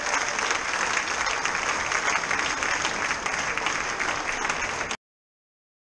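Audience applauding after a performance, dense steady clapping that cuts off suddenly near the end.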